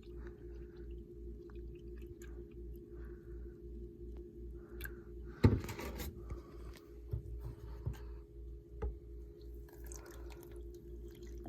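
Milk being poured into the pudding mix, with soft scattered liquid and handling sounds and a sharp knock about five and a half seconds in, over a steady electrical hum.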